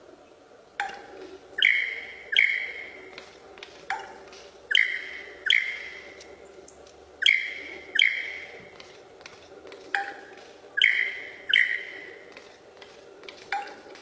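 Superb lyrebird calling during its tail display. A short low note is followed by two loud, ringing notes, and the phrase repeats about every three seconds.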